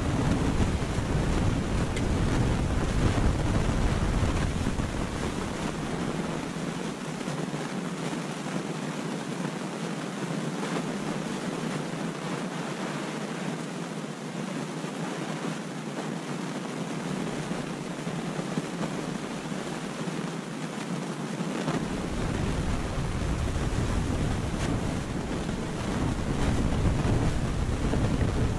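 Wind buffeting the microphone: a steady rushing noise with a deep rumble that drops away for much of the middle and comes back near the end.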